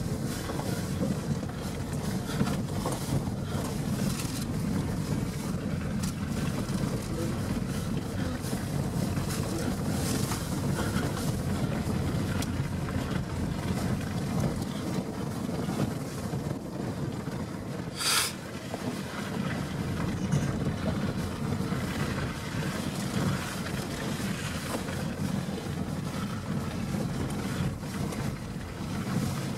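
Vehicle engine and tyres heard from inside the cabin, a steady low rumble with a faint constant hum, driving over a rutted snowy track.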